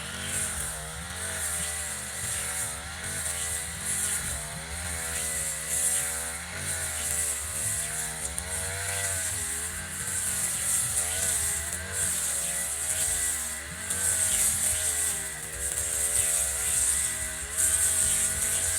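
Echo RM435 two-stroke brush cutter engine running, its speed rising and falling repeatedly with a steady high hiss over it.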